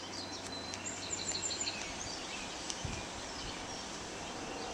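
Quiet background noise with faint, high bird chirps repeating in quick runs during the first half, and a single soft click a little before the three-second mark.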